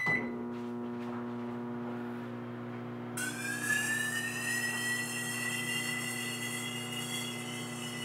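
Emerson microwave oven beeps once as it is started, then runs with a steady electrical hum. About three seconds in, a high-pitched whine with many overtones comes in suddenly and rises slightly before holding steady, as the gas in the plasma ball's glass globe inside lights up into glowing plasma.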